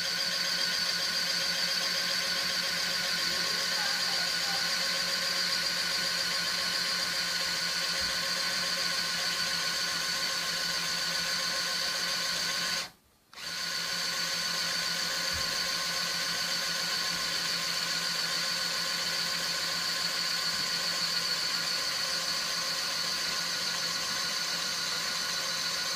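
Small electric motor of a Lego aircraft-carrier catapult running unloaded with a steady high whine. It cuts out for a moment about halfway through, then resumes unchanged.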